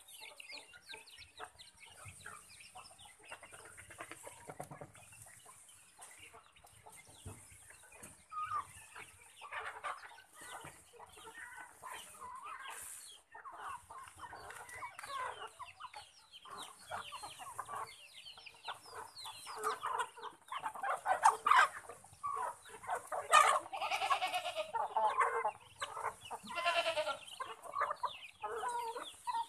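A flock of chickens clucking and calling while they feed, with many short overlapping calls that grow busier and louder in the second half.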